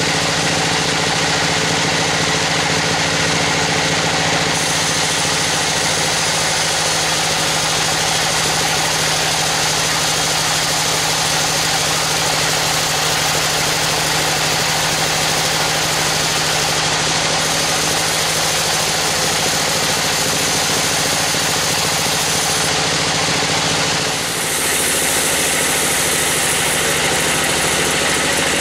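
Band sawmill running steadily as its blade saws lengthwise through a teak log, a steady machine hum under the hiss of the cut. Near the end the sound changes briefly: the hum drops in pitch and the high hiss gets brighter.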